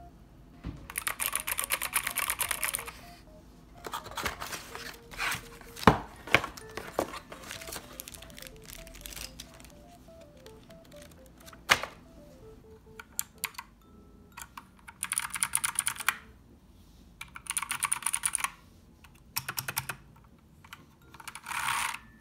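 Keychron K2 mechanical keyboard keys clacking in quick runs of a second or two, four or five times, with a few single knocks in between. Soft background music plays underneath.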